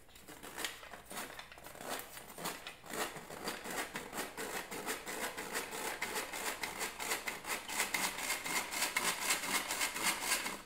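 Old hand-crank tin flour sifter being cranked, its wire agitator scraping over the mesh screen in a steady rasping rhythm of several strokes a second as self-rising flour is sifted through.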